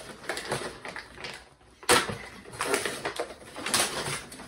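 Paper rustling and crinkling as a wrapped present, a box of shoes, is torn open and the box handled, with a sudden loud crackle about two seconds in.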